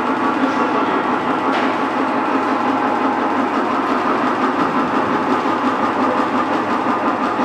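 Electric motor and hydraulic pump of a two-post car lift running steadily as it raises the car.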